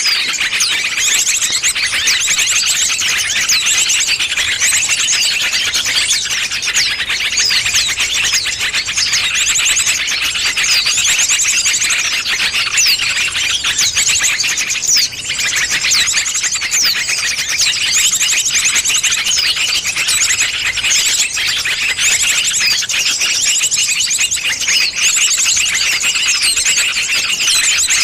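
Bird-lure recording of small songbirds calling together: a dense, loud, unbroken chatter of rapid high-pitched chirps and fast trills that overlap without pause. It is played as a pikat call to draw birds in.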